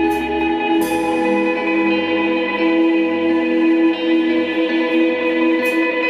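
Live band playing a slow, sustained passage: long held tones over an electric bass line, with cymbal strikes about a second in and again near the end.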